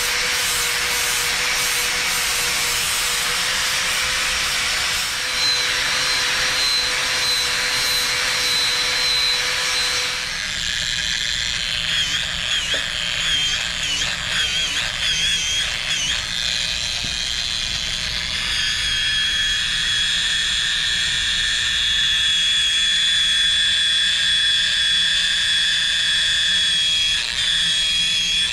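An angle grinder grinds a steel weld cross-section, a steady grinding noise with a low hum under it. About ten seconds in, it gives way to a small right-angle die grinder polishing the face toward a mirror finish. The die grinder's higher whine wavers at first and then holds steady.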